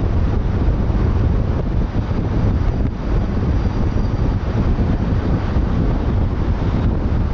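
Steady wind rushing over the microphone, mixed with the low road and tyre noise of a car driving at speed.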